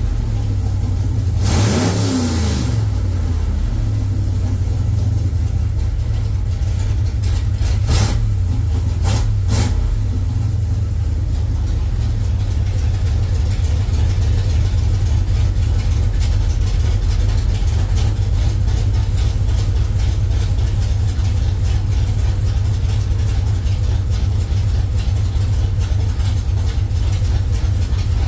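Engine with a FAST self-learning throttle-body fuel injection system running steadily at idle while the EFI learns to hold the idle speed. A brief rev comes near the start, and two short sharp noises come about eight and nine and a half seconds in.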